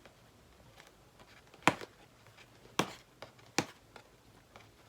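Three sharp taps or snaps, with a few fainter ticks between them, as a cardboard gift box is handled and opened.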